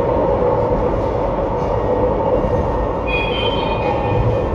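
Tram running on its rails: a steady rumble with a constant hum, and a few brief high thin tones about three seconds in.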